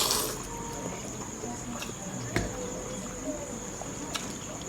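A person eating instant noodles close to the microphone: a short wet slurp at the start, then soft chewing and mouth clicks, with a light knock about two and a half seconds in.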